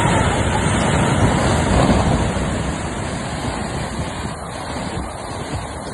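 Rockfall crashing down a cliff into a river gorge: a dense, continuous rumble of falling rock and debris that slowly fades.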